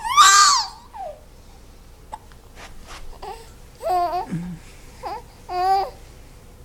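A young child with the hiccups making high-pitched vocal sounds: a loud squeal near the start, then short babbling calls around four, five and six seconds in.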